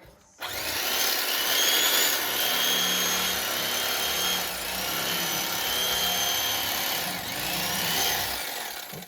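Electric fillet knife running, its motor whine wavering in pitch in several stretches as it cuts through a fish.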